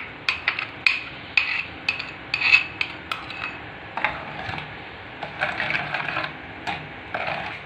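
Steel spoon scraping milk cream out of a bowl and stirring it into milk in a metal pan, with irregular clinks and scrapes of metal on the pan.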